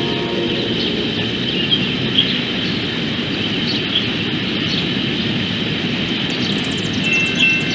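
A train passing close by, its wheels rumbling steadily on the rails. Thin high-pitched squealing tones come in near the end.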